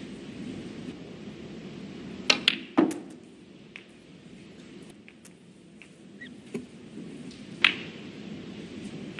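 Snooker balls and cue clicking on the table: a quick cluster of sharp clicks ending in a duller knock a little over two seconds in, then a single loud click near the end, over a low steady arena hum.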